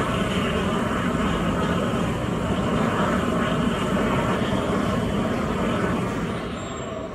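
MEFKON hydrogen oxygen-air burner firing under oxygen operation, its flame burning with a loud, steady rushing noise like a jet. About six seconds in the noise starts to die down as the burner shuts off for nitrogen purging.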